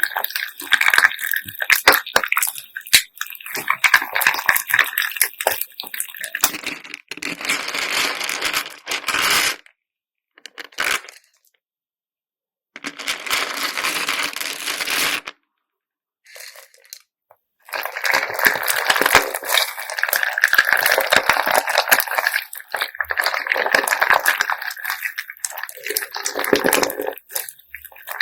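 Slime packed with plastic beads being squished and kneaded, the beads clicking and clattering against each other with wet squelches. It stops briefly twice partway through.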